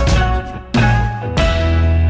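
Background music, with a brief drop in loudness a little over half a second in.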